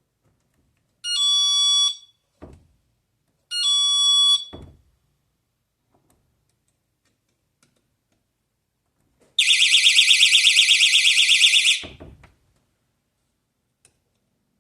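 Budget magnetic door-contact alarm sounding as the door is opened. It gives two short steady beeps of about a second each, then a shrill, rapidly pulsing alarm of about two seconds. Each beep and the alarm is followed by a thud of the door shutting.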